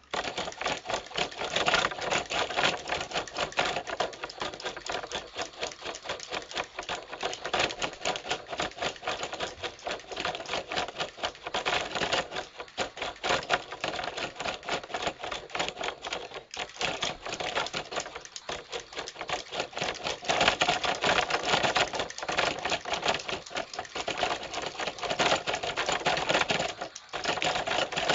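Toy fighting robots' small geared motors and plastic arms and bodies clattering in a fast, continuous rattle as they punch, with a few brief pauses.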